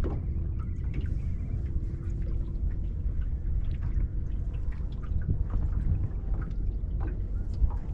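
Steady low wind rumble on the microphone with small, irregular water lapping and dripping sounds over it.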